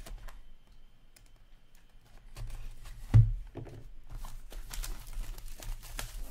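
A sealed hockey card box being opened by hand: small clicks and scraping, a single loud thump a little after three seconds in, then the crinkle and tearing of wrapping near the end.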